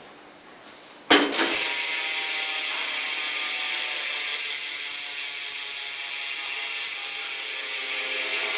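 Salt rear BMX hub freewheeling, its pawls clicking in a fast, continuous ratcheting buzz. It starts suddenly about a second in and keeps going steadily.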